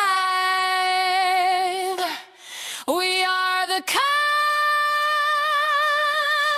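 A wordless female singing voice with no accompaniment, holding a long note with vibrato, breaking off briefly about two seconds in for two short notes, then rising to a long, higher held note.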